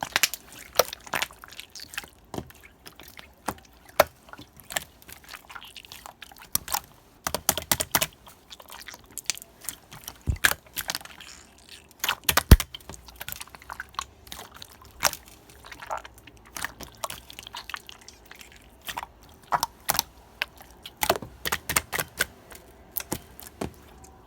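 Irregular wet squishes and sharp clicks, several a second.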